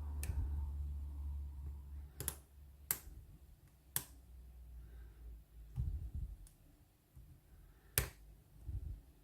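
Sharp, irregular metallic clicks, about seven of them, from a lock pick working the pin tumblers of a Lockwood oval padlock during single-pin picking. A low rumble of handling and tension on the lock runs underneath.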